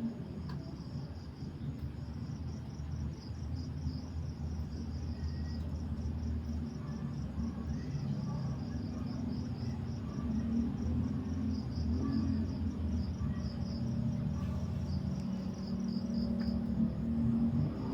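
An insect chirping in a steady, evenly pulsed high trill over a steady low rumble.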